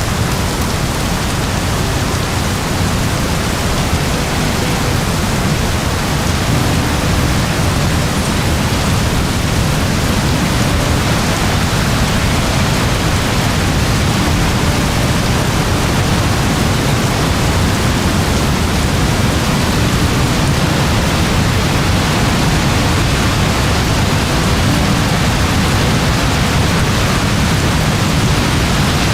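Very heavy rain pouring steadily, a dense, even hiss with a deep low rumble and no separate drops or thunderclaps standing out.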